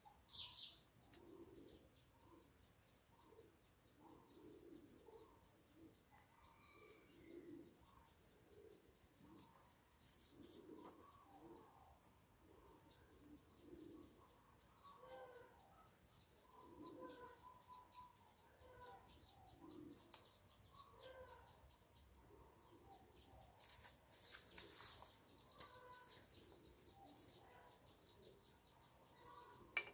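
Faint birds: short high chirps and a dove cooing over and over at a low pitch. A soft rustle of hands working in potting soil is heard about 24 seconds in.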